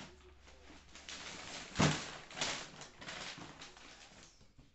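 Brown kraft paper wrapping rustling and crumpling as it is pulled off a cardboard box, with a louder burst about two seconds in.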